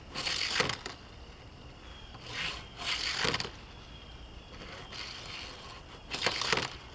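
Four short scraping, rustling handling noises, with quiet between them.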